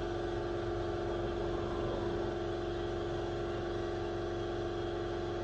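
Steady mechanical hum with a few held tones over a low rumble, unchanging throughout.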